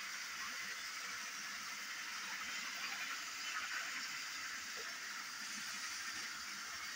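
Faint, steady whirring hiss of a battery-powered toy train's motor and wheels running along plastic track.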